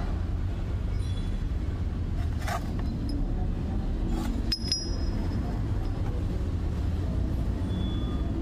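Light metallic clinks as a steel lathe tool bit and a tapered threaded steel shaft are handled together. The sharpest clink, about halfway through, has a brief high ring. Under them runs a steady low hum.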